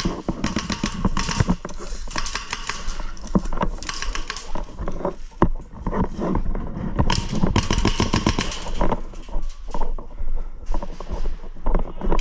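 Airsoft guns firing in rapid full-auto bursts, several bursts with short gaps between them.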